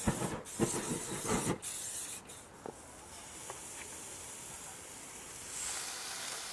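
Chicken skewers and wings sizzling on a hot Weber barbecue's grill and hotplate, a steady hiss that grows a little louder near the end. A few knocks and clatters of food being laid on the grill come in the first second and a half.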